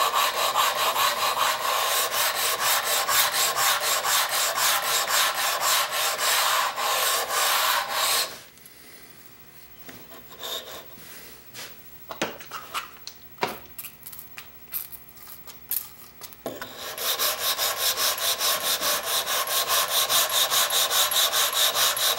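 Cast-iron block plane rubbed briskly back and forth on its side across wet/dry abrasive paper, a fast even rasping of metal on grit, dressing and flattening the plane's sides. Partway through the rubbing stops for several seconds, broken by a few light knocks, then starts again.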